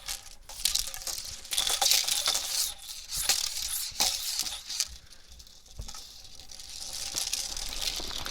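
Hula hoop spinning around the body, a swishing rattle with small clicks that comes in irregular surges, dips around the middle and turns steadier near the end.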